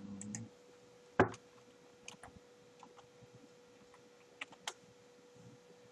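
Computer keyboard and mouse clicks: one sharp click about a second in, the loudest sound, then a handful of scattered keystrokes. A faint steady hum runs underneath.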